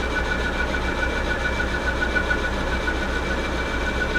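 South Bend 14-1/2 metal lathe running steadily, turning a workpiece between centers on a light finishing cut: a steady hum with a faint high whine.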